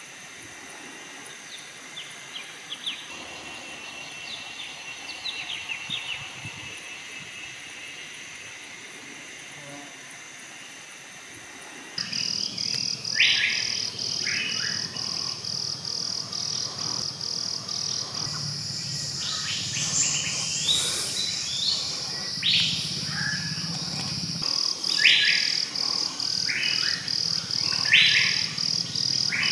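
Forest birds calling with short chirps and whistles. About twelve seconds in, the sound grows suddenly louder: a steady, high, rapidly pulsing insect drone sets in, with loud repeated bird calls over it.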